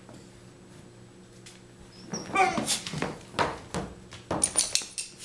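Dog whining briefly about two seconds in, followed by a quick run of scratching and scuffling noises as it paws and digs at the sofa cushions.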